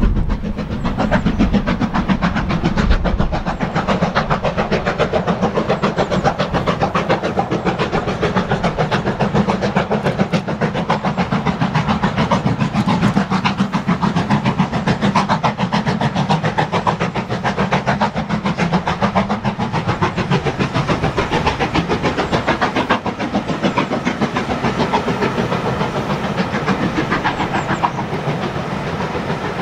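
LMS Black Five two-cylinder 4-6-0 steam locomotive working a passenger train past at speed, its exhaust beating in a rapid, steady run of chuffs mixed with the rumble of the coaches on the rails.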